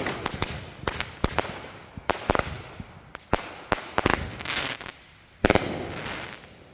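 Fireworks going off: a string of irregular sharp bangs and crackling, with the loudest burst about five and a half seconds in, then dying away.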